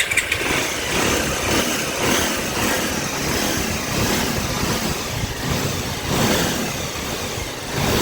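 Bajaj Pulsar 150's air-cooled single-cylinder engine running at idle, swelling slightly in loudness a few times. It runs smoothly with its scissor gear correctly set, without gear noise or vibration.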